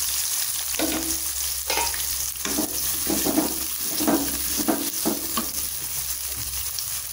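Freshly added chopped onions sizzling in hot oil in a metal kadai, with a wooden spatula stirring and scraping them against the pan in a run of repeated strokes. The strokes stop about a second and a half before the end, leaving the steady sizzle.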